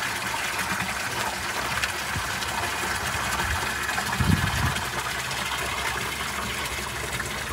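A thin stream of water from a wall spout splashing steadily into a water-filled stone basin, with a brief low bump about four seconds in.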